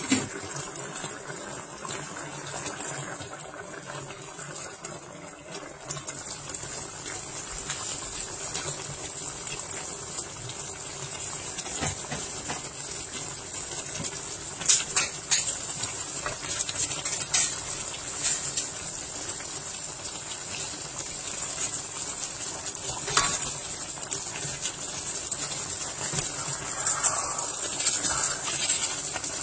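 Coconut-milk stew with fish and vegetables simmering in a wok, a steady bubbling hiss with a few sharp clicks. Near the end a spatula stirs through it.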